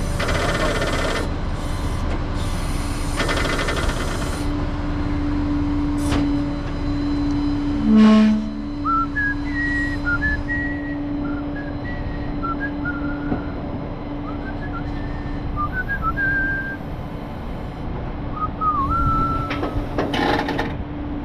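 Truck machinery running with a steady hum, with rushes of noise, a loud clunk about eight seconds in, and then scattered squeaking and scraping from wood rubbing against the truck.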